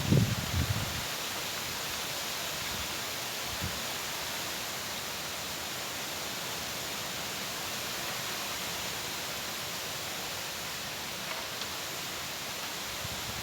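Steady rushing hiss of wind and trickling water. A few low thuds come in the first second.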